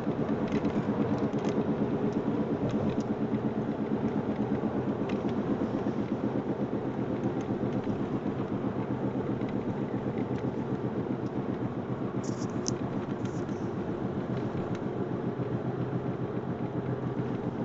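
Ford Mondeo Mk3 coasting in neutral and slowing, with road and tyre rumble and a fast, even rattling from the wheels.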